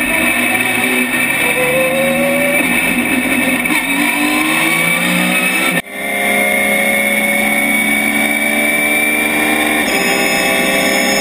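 Porsche 911 GT3 race car's flat-six engine heard from inside the cabin. It runs at moderate revs with a wandering pitch at first, cuts out briefly and suddenly about halfway through, then comes back with the pitch climbing steadily as the car accelerates on the track.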